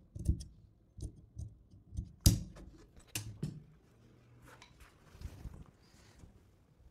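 Large steel tailor's shears cutting through fabric, a series of sharp snips and clicks of the blades in the first three and a half seconds, the loudest a little after two seconds in. Then the cut fabric is lifted and rustles briefly.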